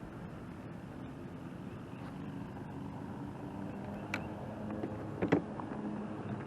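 A boat motor running steadily over water noise, with a faint low hum. Two short sharp clicks break in, the louder one a little past five seconds in.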